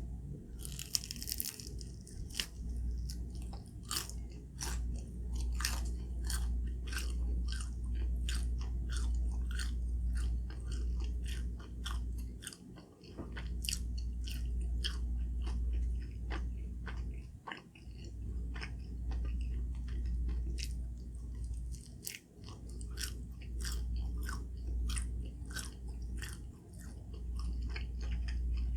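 Close-up mouth sounds of someone chewing scallion pancake: a quick run of small wet clicks and crunchy bites, pausing briefly a few times.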